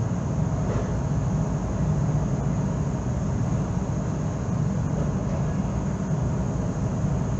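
Steady low engine rumble on a ferry's enclosed car deck, heard from inside a waiting car, with no change in pitch or level.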